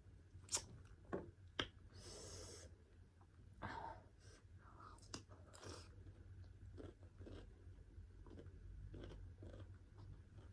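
A person chewing food close to the microphone, with soft wet mouth clicks throughout. A few sharper clicks come in the first two seconds, and a brief hiss about two seconds in.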